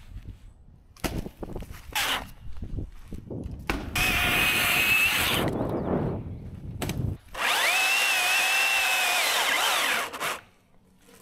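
Battery-powered top-handle chainsaw cutting dead cherry wood in two bursts: about a second and a half from about four seconds in, then about two and a half seconds from seven and a half seconds in. Its motor gives a steady high whine that sags a little under load and cuts off abruptly each time. A few short knocks and handling sounds come before the first burst.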